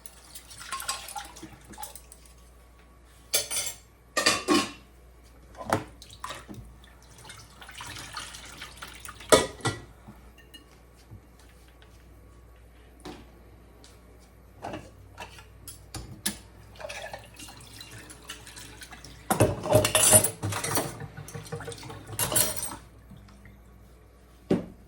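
Dishes and cutlery clinking and clattering irregularly as they are handled and sorted for the dishwasher. Water runs in two spells, a short one before the middle and a longer, busier one with dense clattering near the end.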